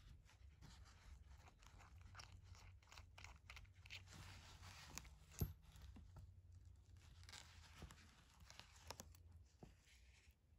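Faint handling sounds of a TAG Heuer Professional 200m's steel bracelet and unscrewed caseback on a table: scattered small clicks and rustling, with one sharper click about five and a half seconds in.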